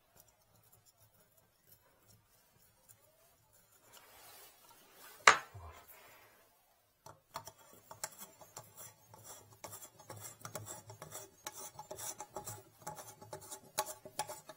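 Chrome bathtub drain flange being twisted by hand in the drain opening, metal scraping and rubbing against the drain. There is one sharp clack about five seconds in, then a run of small rapid clicks and scrapes.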